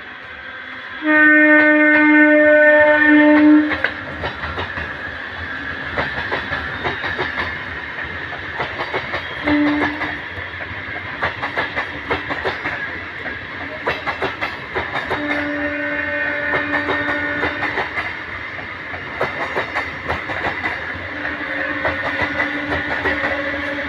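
Indian Railways MEMU electric train sounding its horn as it passes: a long loud blast about a second in, a short toot near the middle, and two more held blasts in the second half. Its wheels clatter steadily over the rail joints throughout.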